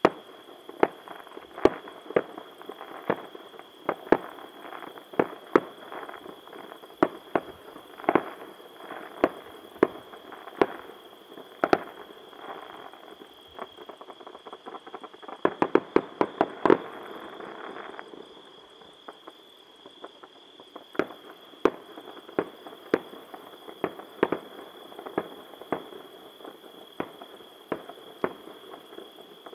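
Aerial fireworks shells bursting in a string of sharp bangs, about one or two a second, with crackling between them. About halfway through comes a quick rapid-fire flurry of bangs, followed by a short lull before the bursts resume.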